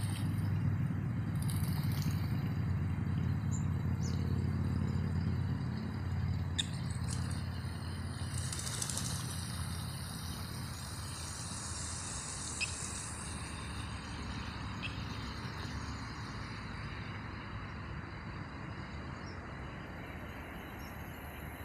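Steady low rumble and hiss of open-air pond ambience, with the splashing of a spraying fountain and a few short, high bird calls.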